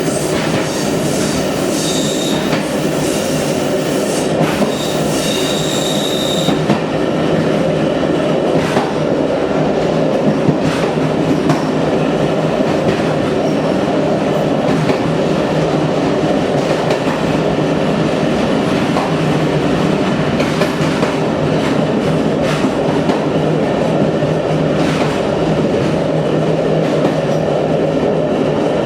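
Train running over badly worn track: a steady rumble with the wheels clacking over rail joints. A high-pitched wheel squeal runs through the first several seconds and stops about six seconds in.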